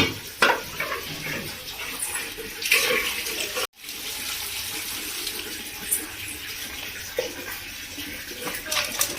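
Water running from a tap into a sink, with a few knocks and splashes near the start. The sound cuts out for an instant about four seconds in, then the running water goes on.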